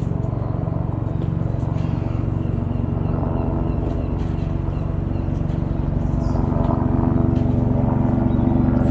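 Eurocopter AS355 F2 Twin Squirrel helicopter running, its twin turbines and rotor making a steady pulsing drone that slowly grows louder.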